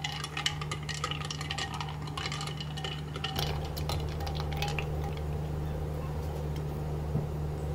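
A metal spoon stirring almond drink with ice cubes in a glass jug: quick, rapid clinks of spoon and ice against the glass, thinning out about three seconds in. A steady low hum runs underneath.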